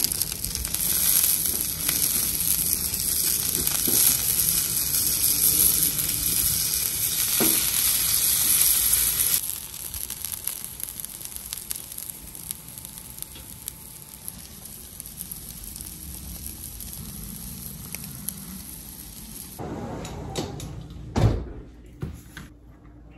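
Oil and vegan burger patties sizzling on a hot propane flat-top griddle: a loud, steady sizzle that drops suddenly to a quieter one about nine seconds in. A single knock comes near the end.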